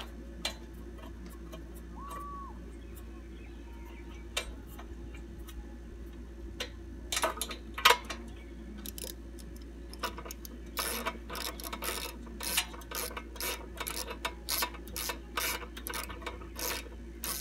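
3/8-inch ratchet with a spark plug socket clicking as a new spark plug is tightened into a mower's Kawasaki engine. A few scattered clicks come at first, then a steady run of sharp clicks about two a second over the last seven seconds.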